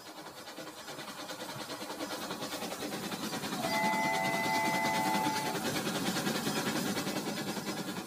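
Toy freight train running on plastic track, its small electric motor and wheels making a steady whirring rattle that grows louder as it comes close. About three and a half seconds in, an electronic horn sounds a steady chord for about two seconds.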